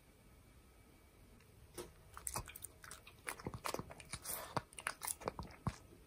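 A Shih Tzu dog chewing a piece of persimmon: irregular wet crunching and clicking bites that start about two seconds in and keep going.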